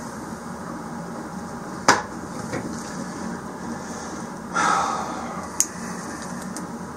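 Hands handling the heater kit's fuel line and small fittings: one sharp click about two seconds in, a short scraping rustle a little after halfway, and a small click soon after, over a steady low hum.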